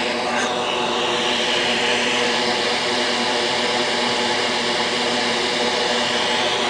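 Vacuum desoldering tool's pump motor running steadily, with a hiss of air drawn through the tool.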